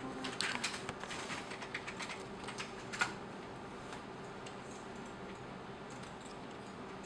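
Scattered light clicks and taps over the first three seconds, with one sharper click about three seconds in, then only faint room noise.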